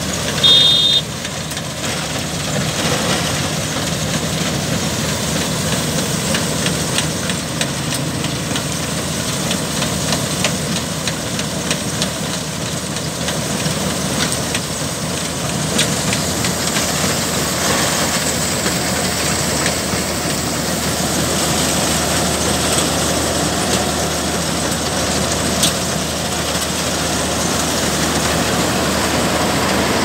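Combine harvester running steadily while its header reel and auger cut and feed rice straw. A brief high-pitched tone sounds about half a second in.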